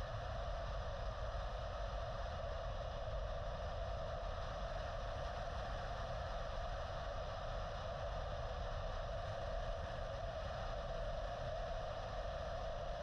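Steady wind and road noise on a camera mounted outside a moving car, a constant rushing hiss over a low rumble.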